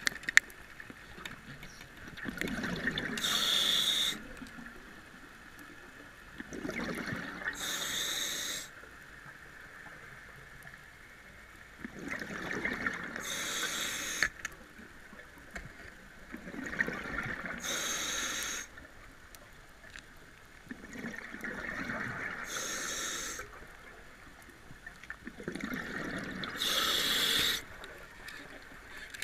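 Scuba diver breathing through a regulator underwater: six breaths four to five seconds apart, each a rush of air and bubbles ending in a bright hiss.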